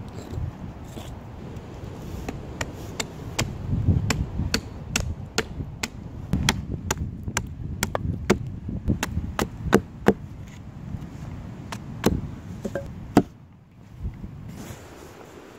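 Hatchet chopping at a wooden stick against a log: a steady run of sharp chops, about two a second, that stops near the end.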